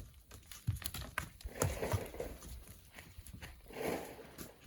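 Hand tools striking and scraping a cliff of packed volcanic black sand: irregular knocks and thuds, with brief rushing spells in the middle and near the end.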